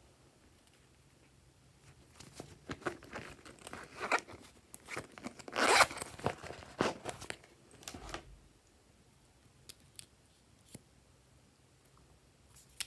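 Zipper on a novelty rotary-telephone-shaped handbag being pulled in several short runs, the longest and loudest about six seconds in, followed by a few light clicks.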